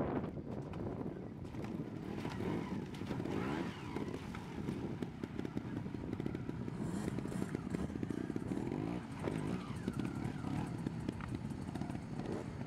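Trial motorcycle engine revving up and down in short bursts as the bike is ridden through shallow water and over rocks, with a brief splash about seven seconds in.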